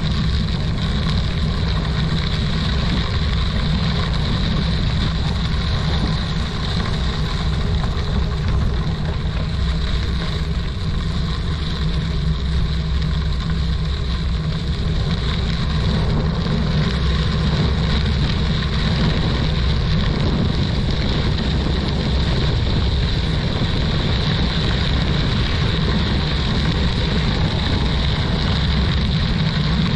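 Wind buffeting the microphone of a camera on a moving bicycle: a steady low rumble mixed with tyre noise.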